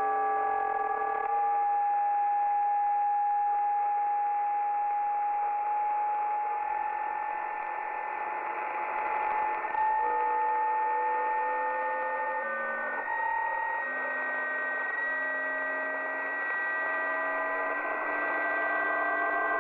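Strange signal on 28.480 MHz in the 10 m amateur band, heard through a radio receiver: several steady tones sound together over a hiss. Each tone holds for a while, then jumps to a new pitch, and one or two slide slowly in pitch. It is unidentified interference that has been on for hours.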